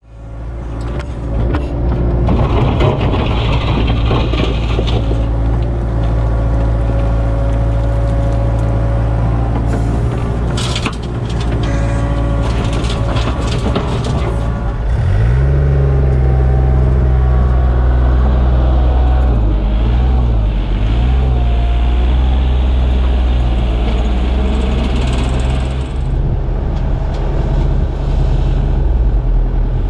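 Excavator diesel engine running steadily. It revs up about fifteen seconds in and briefly bogs down and recovers around twenty seconds in, as if under hydraulic load. A burst of metallic clatter and knocks comes around ten to fourteen seconds in.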